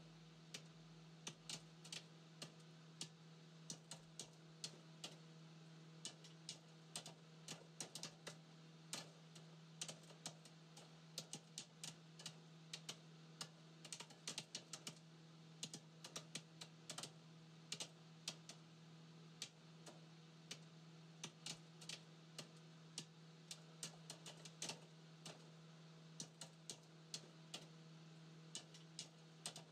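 Faint, irregular sharp clicks, several a second, over a low steady hum.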